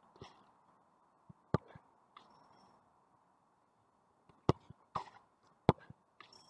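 Soccer ball being kicked on artificial turf: several short, sharp thuds, the strongest about a second and a half, four and a half and five and a half seconds in.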